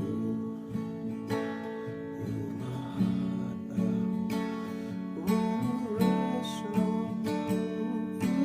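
Acoustic guitar strumming the verse chords, each chord left to ring, with a new strum every second or so.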